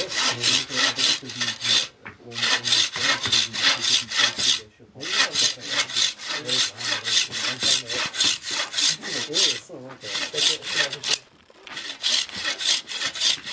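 Wooden-framed bow saw cutting a spoon blank in fast, even back-and-forth strokes, roughing out the blank's shape. The sawing stops briefly three or four times and starts again.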